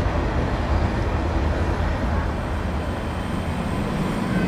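A train of yellow Union Pacific passenger cars rolling past at close range: a steady rumble of steel wheels on rail.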